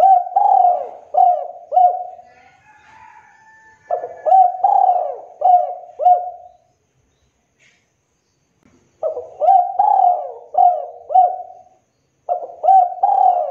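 Spotted dove (tekukur) calling in repeated phrases of five or six coos each, with pauses of about two seconds between phrases. Three phrases are heard in full and a fourth begins near the end. This is the kind of vigorous call played as a lure to set other spotted doves calling.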